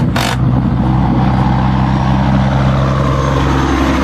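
An engine idling steadily at constant speed, with a brief clatter right at the start.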